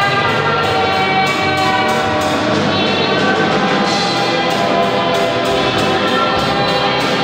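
Music from a children's band: electric guitar and drum kit playing over held chords.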